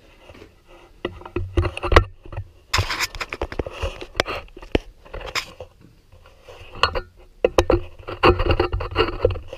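Irregular knocks, clatter and scraping of tools and metal objects being handled and set down on a workshop bench, with the loudest clusters of knocks about two seconds in and near the end.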